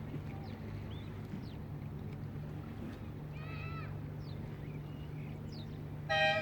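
Birds calling over a steady low hum: brief high chirps scattered throughout, a short call a little past halfway, and a louder, harsher call right at the end.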